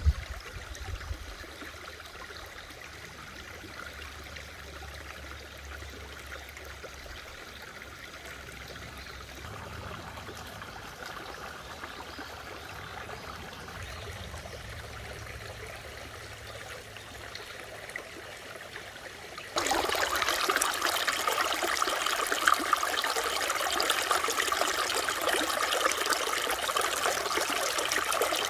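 Mountain stream flowing over rocks, a steady soft rush of water that abruptly becomes much louder and closer about two-thirds of the way through. A brief click right at the start.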